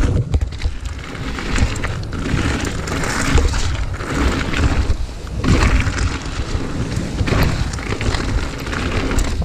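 Mountain bike rolling fast down a stony gravel singletrack: tyres crunching over loose stones, with a low, rising-and-falling rumble of wind buffeting the chest-mounted camera's microphone.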